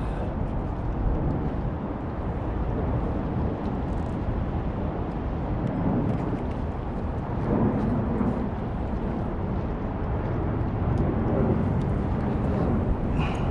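Steady low rumbling outdoor noise with a few faint ticks.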